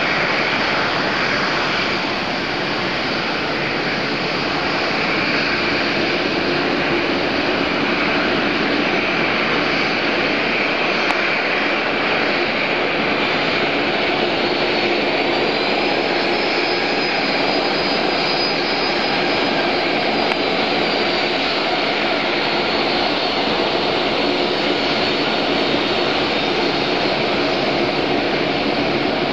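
Boeing 737-800's twin CFM56-7B turbofan engines running at taxi power: a steady jet rumble and hiss, with a faint high whine coming in for a few seconds midway.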